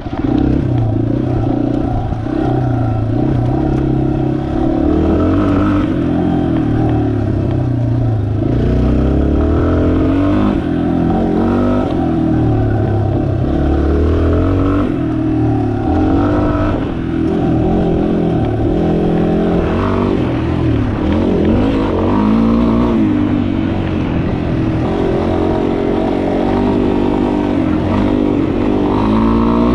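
2019 Yamaha XT250's air-cooled single-cylinder four-stroke engine under way, its pitch rising and falling again and again as the throttle is opened and closed.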